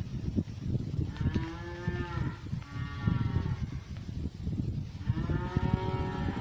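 Cows mooing: a long moo, a short one right after it, then another long moo near the end, all over a constant low rumbling noise.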